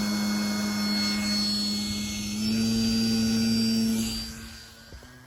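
Electric motor and propeller of a radio-controlled Cessna 182 model plane running, a steady buzzing drone with a high whine. It steps up in pitch about two and a half seconds in, then fades away near the end.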